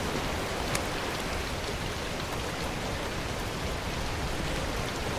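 Steady wind noise on the microphone: an even hiss with a low, uneven rumble from the gusts, and a few faint clicks.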